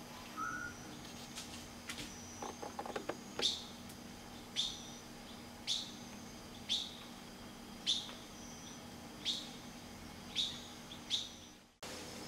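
A bird calling over and over, a sharp high chirp that falls in pitch, about once a second, eight times. A few soft clicks come just before the calls begin, and a faint steady high insect drone runs behind.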